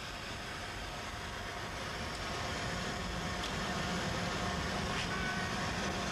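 Steady engine noise with a low hum that grows slightly louder about two seconds in.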